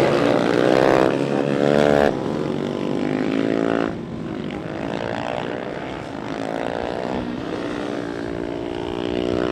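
Racing motorcycle engines revving hard through a bend and accelerating away, the pitch climbing in repeated sweeps as the bikes pull through the gears. Loud for the first four seconds, then softer and more distant after an abrupt cut.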